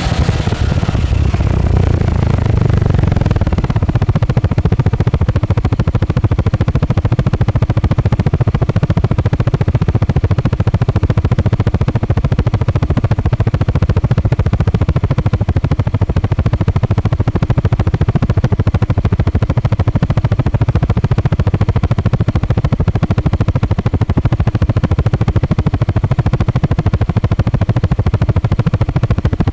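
Honda Forza 350 scooter's single-cylinder four-stroke engine running steadily, driving the spinning rear wheel.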